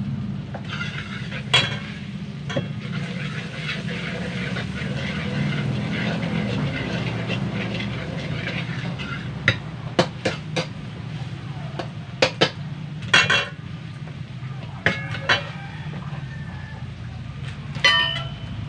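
Onions, tomatoes and spices sizzling in a metal wok as they are stirred, with a steel ladle scraping and knocking against the pan. Sharp clanks come in the second half, the last one ringing briefly.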